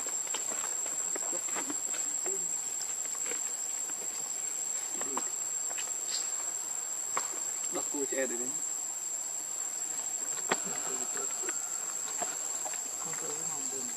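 Insects chirring in one steady, unbroken high-pitched drone, with scattered faint clicks and one sharper click about ten and a half seconds in.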